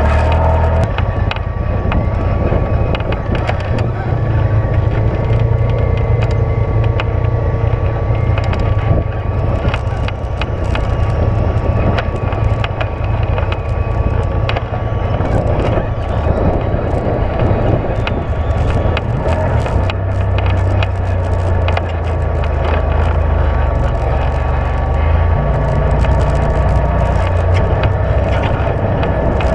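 Side-by-side UTV engine running steadily while driving a rough dirt trail, with frequent short clatters and knocks from the bumpy ride. The engine note drops about two-thirds of the way through, then rises again near the end.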